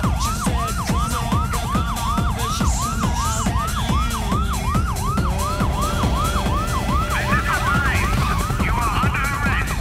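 Emergency-vehicle siren in fast yelp mode, about three sweeps a second, each dropping in pitch, over a steady low rumble.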